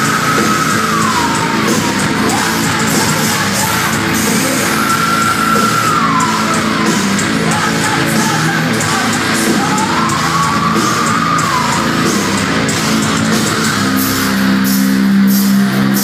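Live heavy metal band playing loud in a large hall, heard from the crowd: a female singer holds long high notes that slide down at the end, three times, over the band. Near the end a low note is held under the music.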